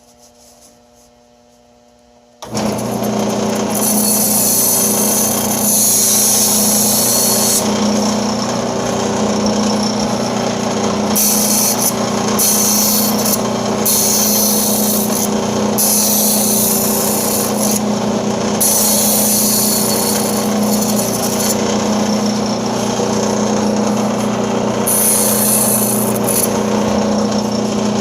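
Band saw starting up about two and a half seconds in, then running with a steady hum while its quarter-inch blade cuts high-density Styrofoam, a high hiss that comes and goes as the foam is fed through.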